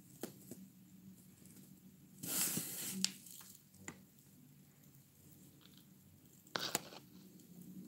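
Handling noise from fingers and a plastic toy horse figurine held close to the phone's microphone: light taps and rustles, with a longer rustle about two seconds in and a sharper one near the end.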